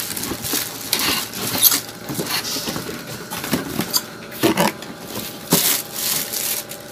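Plastic packaging bag crinkling and rustling in irregular bursts as hands handle a Tatung electric rice cooker's metal inner pot in a cardboard box, with a few light knocks of the pot against the box.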